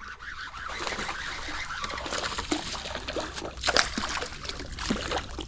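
Water splashing in irregular bursts, the sound of a hooked fish thrashing at the surface as it is brought to the boat. The loudest splash comes a little under four seconds in.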